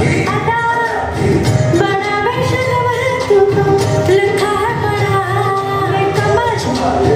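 Hindi film song playing: a woman singing an ornamented melody over instrumental backing.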